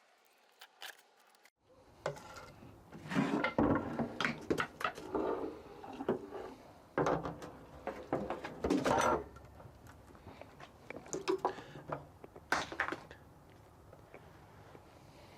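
Scrubbing and handling an oily oil drain pan while degreasing it: irregular rubbing and scraping strokes with a few light knocks, after about two seconds of near silence at the start and easing off near the end.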